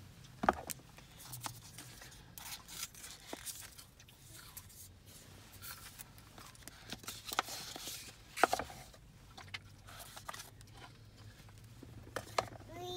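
Unboxing a Google Pixel 3's cardboard retail box: the lid and sleeve sliding off, card scraping and rustling, with scattered light taps and two sharper knocks, one about half a second in and one about two-thirds of the way through.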